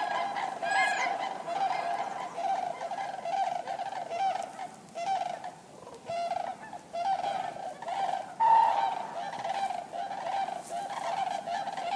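Common cranes calling: many short, repeated honking calls from several birds overlapping one another, with a brief lull about six seconds in and the loudest call at about eight and a half seconds.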